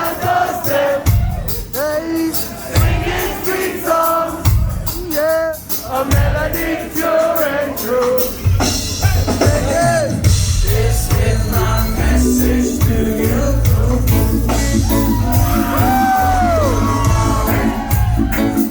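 Live reggae band playing with singing. The first half is sparse, with the voice over stop-start bass hits. About eight seconds in, the full band drops in with a steady, continuous bass line.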